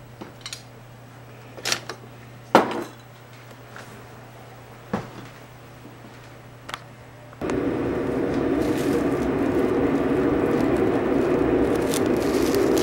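A glass baking dish being handled: a few sharp knocks and clinks, the loudest about two and a half seconds in. From about seven seconds a much louder steady rushing noise sets in suddenly, with crinkling of plastic cling wrap being stretched over the dish.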